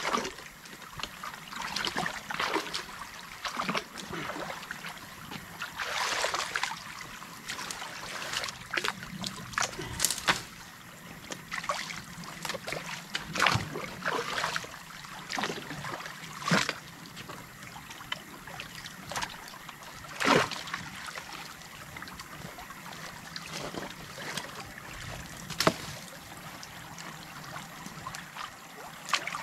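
Water trickling and running through a breach in a beaver dam, with irregular splashes and knocks as debris is worked loose from the dam.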